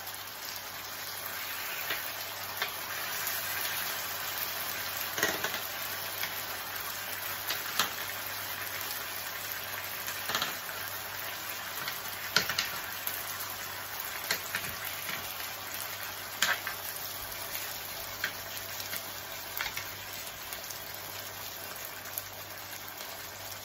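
Salmon fillets in sweet chilli sauce sizzling steadily in a pan as the sauce cooks down. A metal spoon clicks against the pan now and then as the sauce is spooned over the fish.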